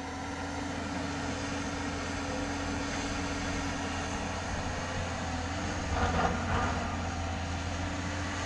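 JCB tracked excavator's diesel engine running steadily while it works, with a brief louder surge about six seconds in.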